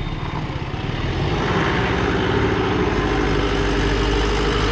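Loaded Mahindra Bolero pickup's diesel engine running as the truck pulls away and drives close past, growing louder about a second in.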